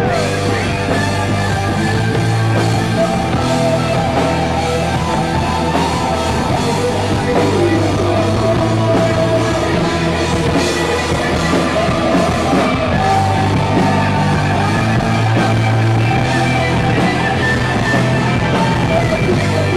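Rock music led by electric guitar, loud and steady throughout.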